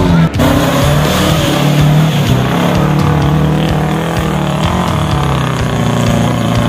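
Small 4x4 Suzuki Jimny's engine revving hard under load as it claws through deep mud, the pitch rising and falling as the throttle is worked. The sound breaks off briefly just after the start.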